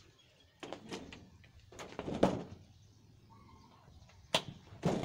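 Footsteps crunching on gravel: a handful of slow, irregular steps with gaps between them, the loudest a little past two seconds in.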